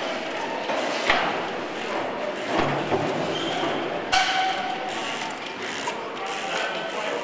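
Trials bike's freewheel hub clicking as the rider ratchets the cranks between hops, with sharp knocks as the tyres land on the container boxes, twice loudly, about a second in and about four seconds in.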